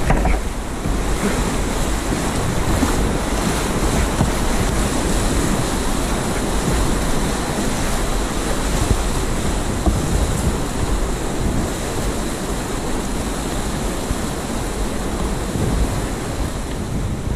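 Loud, steady rush of whitewater rapids around a kayak running through them, with low buffeting of water and wind on the camera microphone.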